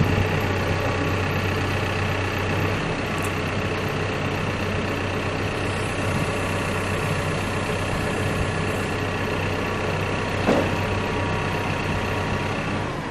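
Caterpillar backhoe loader's diesel engine idling steadily, with a single short knock about ten seconds in.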